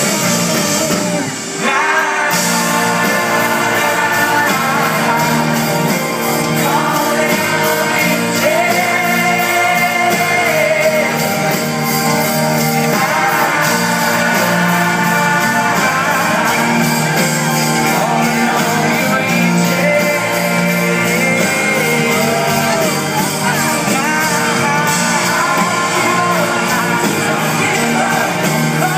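Live rock band playing with a lead vocalist: amplified guitars, drum kit and singing, heard from within the audience in a large reverberant venue.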